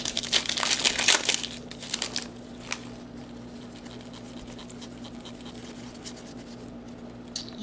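Foil wrapper of a trading-card pack crinkling and tearing as it is opened, dense for about the first two seconds. After that only a steady low hum is left.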